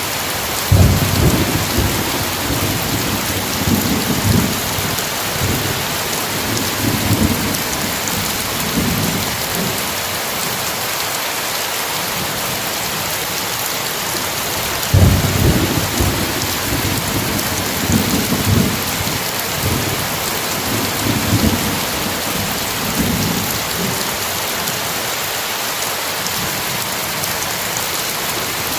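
Heavy rain falling with a steady hiss, with thunder rumbling twice: a sharp clap about a second in that rolls on for several seconds, and another about halfway through that rolls on in pulses.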